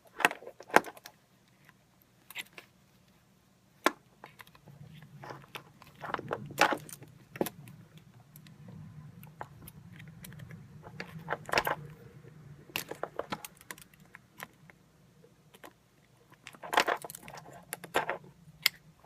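Irregular clicks and small rattles of wire terminals being pulled out of a plastic 9007 headlight connector adapter and the wiring being handled, with a few denser bursts of clicking.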